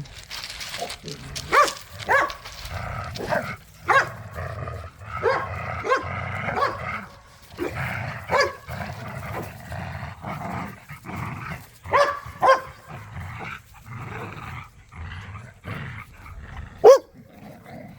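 Dogs wrestling over a tug toy, growling steadily with many short sharp barks and snarls throughout; the loudest bark comes near the end.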